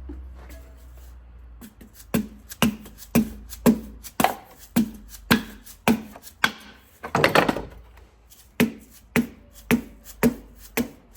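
Plastic dead-blow hammer giving a piston gentle, regular taps, about two a second, to drive it and its connecting rod down into the engine block of a Cummins NTC350 diesel. A short, busier clatter comes about seven seconds in.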